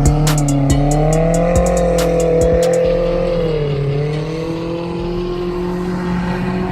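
An off-road race vehicle's engine running on the track, its pitch rising and falling as it revs. A drum-machine hi-hat beat from background music ticks over the first three seconds.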